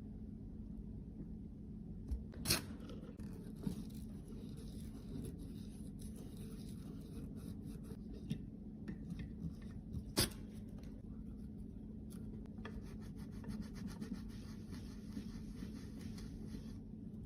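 Close-miked rubbing and scraping of small tools on makeup products, with two sharp clicks, about two and a half seconds in and about ten seconds in, and a run of fast fine ticking over the last few seconds, all over a steady low hum.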